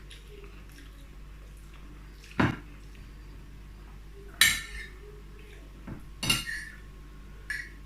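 Metal cutlery clinking against a plate of rice and stew while eating, about four separate clinks with a short ring after some of them, spaced one to two seconds apart.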